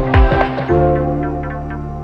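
Background music: a beat of drum hits under sustained chords that drops out less than a second in, leaving only the held chords.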